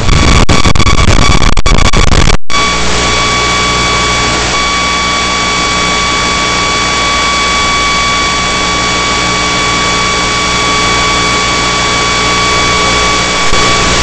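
Loud radio static from an analog video link: a rough, crackling hiss that cuts out abruptly about two and a half seconds in, then an even steady hiss with a thin steady electronic whine and a low hum.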